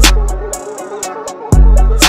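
Music with a heavy beat: deep sustained bass notes struck at the start and again about a second and a half in, each with a sharp drum hit, over a steady tick of hi-hats.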